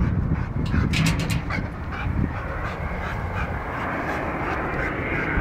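Rottweiler giving a few short barks, mostly in the first couple of seconds, over a steady low rumble.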